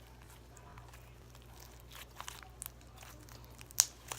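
Hands squishing and poking a stiff, putty-like slime, making small crackles and clicks, with one sharp click near the end.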